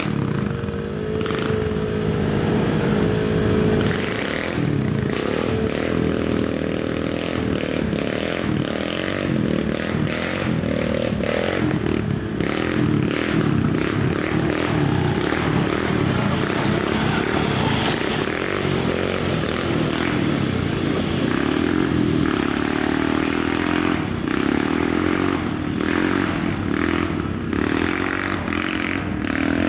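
Quad (ATV) engine running, its pitch rising and falling with the throttle, with frequent knocks and rattles from the machine.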